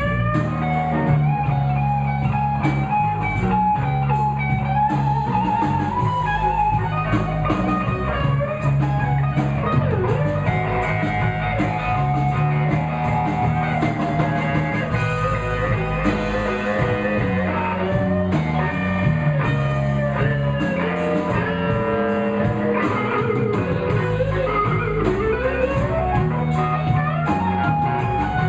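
Live blues band playing an instrumental passage: guitar, bass and drums, with a lead line of held and bent notes.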